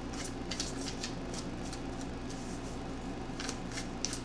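Tarot deck being shuffled by hand: a run of short, soft card flicks and rustles over a low steady hum.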